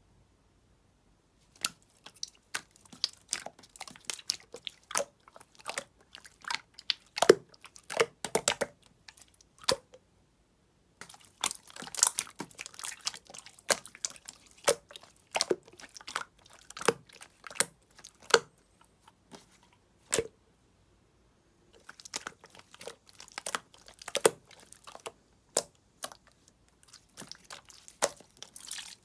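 Slime being pressed and worked by hand, giving rapid crackling clicks and pops. It comes in three stretches, starting about a second and a half in, with brief silent pauses about a third and two thirds of the way through.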